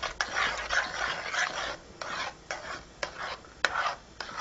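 Spoon stirring thick talbina (barley-flour porridge) in a metal pot: repeated scraping strokes against the pot with a few sharp clicks.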